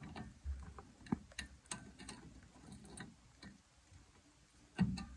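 Faint, scattered clicks and taps of steel drum brake hardware being worked by hand as a spring and connector are pushed into place on the brake backing plate, with a louder thump near the end.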